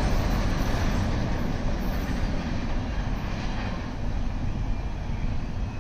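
The tail end of a double-stack intermodal container train rolling away along the track, a steady noise of car wheels on rail that slowly fades.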